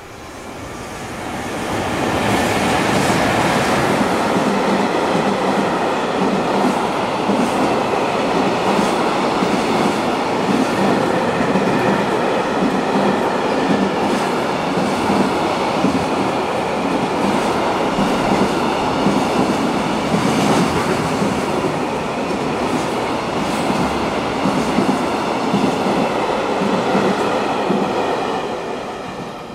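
Freight train hauled by a JR Freight EF210 electric locomotive passing through at speed, its wheels clattering over the rail joints in repeated clicks. The sound swells over the first two seconds as the train arrives, runs loud and steady, then dies away near the end as the last wagons pass.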